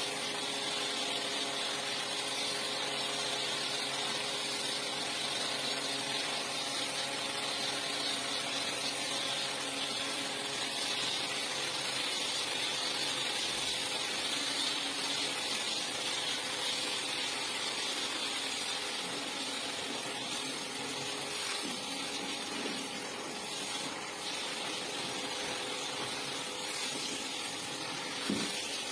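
A rug-cleaning machine's motor running steadily with a loud even hiss and a constant hum, with one short knock near the end.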